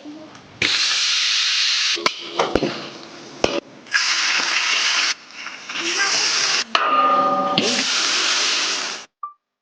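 Hot oil sizzling hard as potato slices deep-fry for chips, in several stretches that start and stop abruptly, with a few light knocks of utensils in between.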